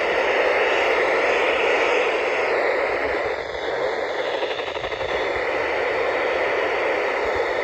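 Steady static hiss from a NOAA weather radio receiver.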